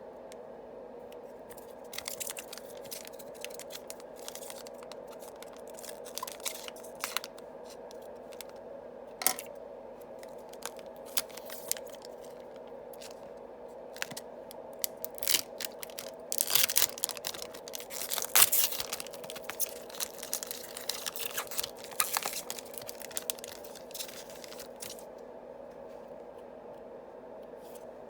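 Yu-Gi-Oh booster pack wrappers crinkling and tearing open, with cards being handled. The crackles come in scattered bunches and are thickest about two-thirds of the way through, over a steady low hum.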